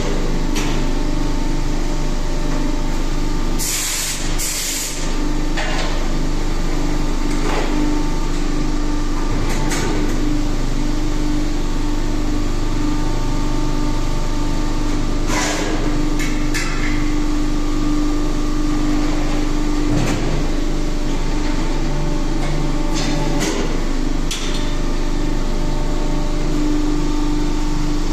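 Injection die-casting machine running with a steady hum, two short hisses of air about four seconds in, and a few sharp metallic knocks spread through the rest.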